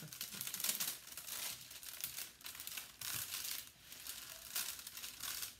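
Clear plastic cover film on a diamond painting canvas crinkling as hands smooth it back down over the sticky canvas, in a run of uneven rustles.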